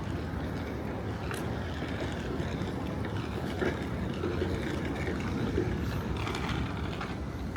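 Steady low rumble of outdoor city background noise, with no single distinct event standing out.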